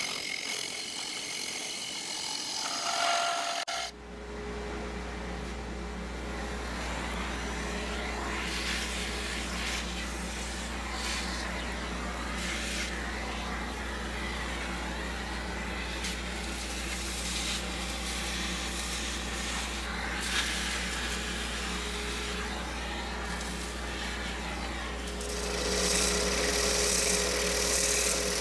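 Wood lathe turning a segmented bowl: a bowl gouge hisses as it cuts shavings inside the spinning bowl, then after a cut the lathe's steady low hum runs under the rubbing of sandpaper on the spinning wood. Near the end a drill-driven sanding disc whirs louder against the outside of the bowl.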